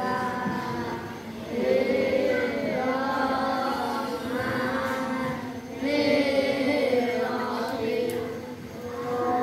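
A class of schoolchildren chanting together in unison, in long drawn-out phrases with short breaks between them.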